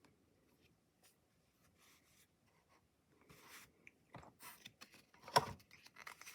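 Trading cards being handled: faint rubbing and sliding of card stock as one card is moved off the next, with a few light taps, the sharpest about five and a half seconds in.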